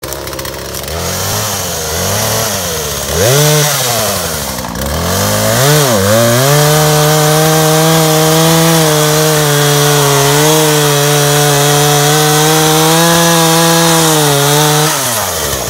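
Chainsaw revving up and down several times, then running steadily at high speed for about nine seconds as it cuts through a log, dropping off near the end.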